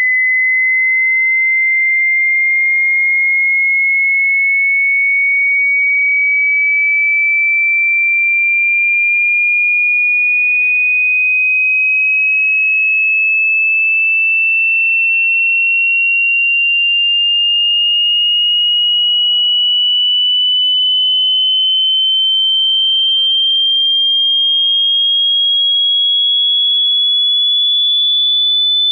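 A single pure sine tone gliding slowly and evenly upward in pitch at a steady loudness: a hearing-test frequency sweep rising from 20 Hz toward 20 kHz.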